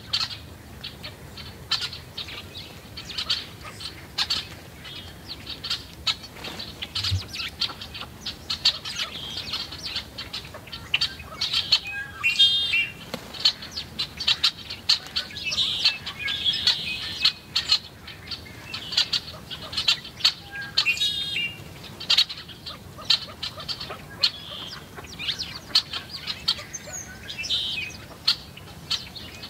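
A flock of small songbirds at a seed feeder chirping busily and constantly, with short quick notes one after another and wings fluttering as birds come and go. About halfway through, and again about two-thirds of the way in, a bird gives a rapid chattering call.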